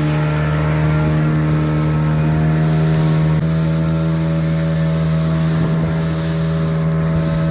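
Fishing boat's engine running loud and steady at constant speed, under way at sea.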